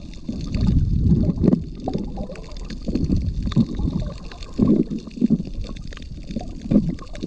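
Water sloshing and gurgling around a submerged action camera, muffled and in irregular low surges, with scattered small clicks.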